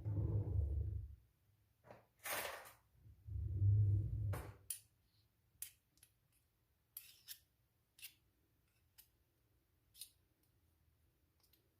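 Kitchen handling noises from a spoon and containers: two dull thumps, one at the start and one about three and a half seconds in, with a short scrape between them, then a scatter of light clicks and taps.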